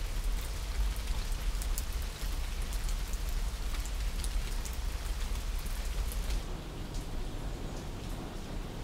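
Steady rain falling, with single drops ticking sharply close by over a low rumble. The close drop ticks thin out after about six seconds.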